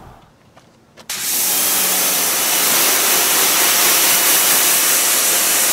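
Pressure washer jet spraying water over a car's rear hatch and glass, a steady loud hiss that starts suddenly about a second in; the car is being water-tested to find a leak into the cabin.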